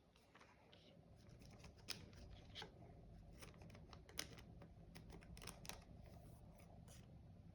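Faint clicks and light rustling of trading cards being flipped through and handled, over a low steady hum.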